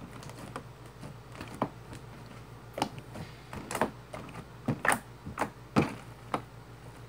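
Homemade jiggly slime being poked and pressed by hand on a tabletop, making irregular sharp wet clicks and pops. They are sparse at first, then louder and more frequent from about three seconds in.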